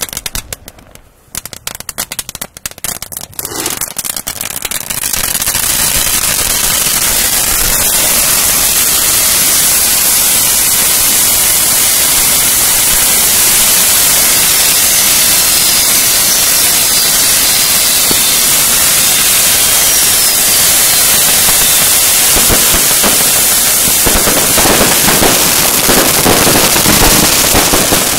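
A heap of category 1 and 2 consumer fireworks going off on the ground. It starts with scattered rapid firecracker bangs, then from about five seconds in becomes a loud, continuous crackling and hissing as the whole pile burns at once, with faint whistles in the middle.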